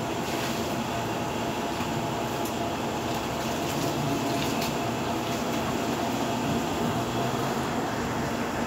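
A steady machine hum with a few brief, faint clicks.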